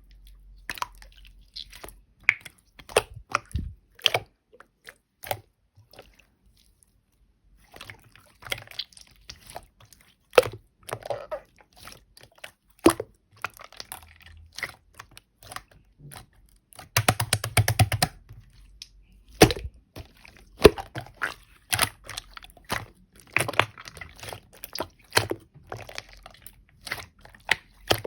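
Clear slime being squeezed, pressed and stretched by hand, making irregular sticky pops and clicks. There is a short pause, and about seventeen seconds in comes a quick run of crackling pops.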